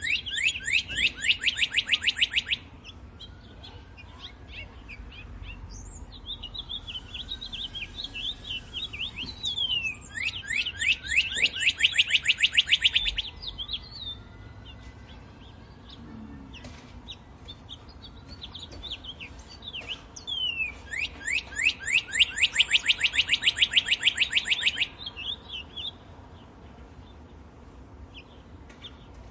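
Birdsong in a wood. One bird sings three loud songs, each a fast run of repeated downward notes lasting two to four seconds, about ten seconds apart. Softer chirps from other birds fill the gaps.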